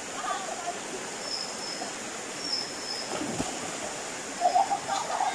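Steady rush of flowing river water, with a few short high bird chirps early on and children shouting near the end.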